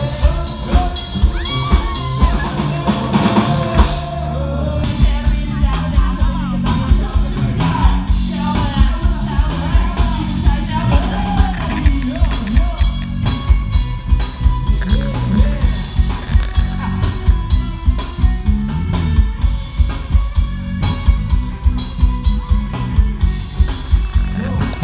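Live rock band playing loudly: a singer over a steady drum-kit beat and electric guitar.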